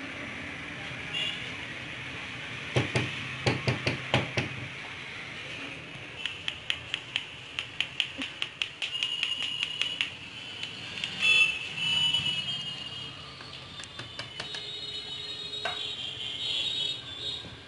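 Quick taps and knocks as toner powder is tapped out of a foil bag into a Samsung laser toner cartridge. Then comes an even ticking of about four taps a second, and a louder scrape a little past halfway. Thin high-pitched tones come and go near the end.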